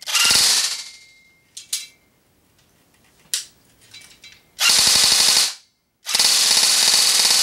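JG AKS-74U electric blowback airsoft gun cycling on full auto: the motor-driven gearbox rattling out rapid shots, with the blowback bolt clacking back and forth in the receiver with each one. A short burst at the start, a second about four and a half seconds in, and a long burst from about six seconds in, with a few light clicks between.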